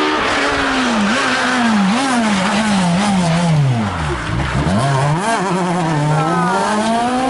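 Renault Clio rally car's engine braking down in steps with throttle blips as it downshifts. The revs bottom out about four seconds in, then climb steadily as it accelerates away.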